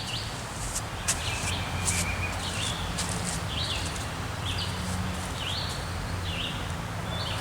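A bird calling over and over, a short high call repeated about once a second, over a low steady rumble, with a few sharp clicks.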